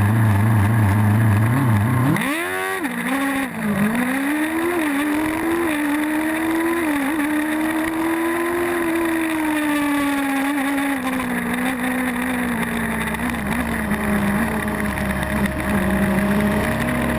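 Formula Student race car's engine heard onboard: running at low revs, then about two seconds in revving sharply up as the car accelerates, dipping briefly, and holding a steady note that slowly falls toward the end.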